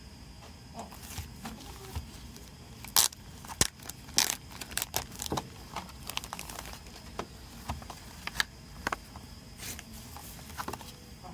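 Cellophane shrink wrap being torn and peeled off a CD case, crinkling with irregular sharp crackles, the loudest about three seconds in.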